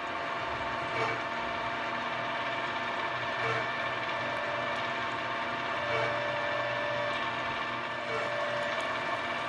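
Milling machine spindle running with a steady geared whine as a one-inch twist drill bores out a pilot hole in a solid aluminum block, with a slight recurring bump about every two and a half seconds.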